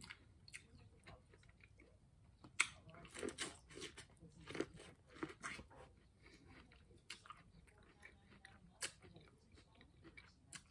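Close-miked bites into boiled corn on the cob: wet crunches of kernels being pulled off and chewed. There is a busy run of bites and chewing a few seconds in, then a few single crunches spaced out toward the end.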